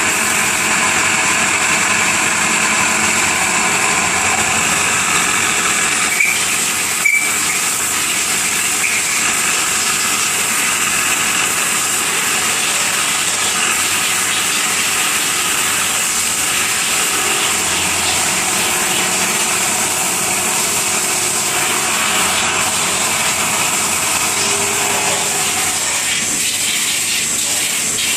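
Machine running steadily, a constant hiss with a high whine through it, broken by two short knocks about six and seven seconds in.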